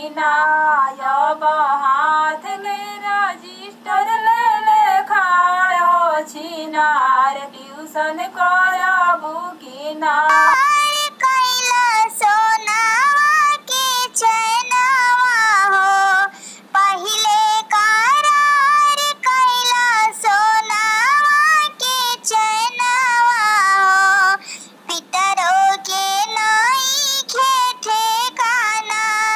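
A woman singing a Bihari gali geet, a folk wedding song, in a high voice with no clear instruments behind it. About ten seconds in, the recording cuts to a brighter, sharper-sounding stretch of the song.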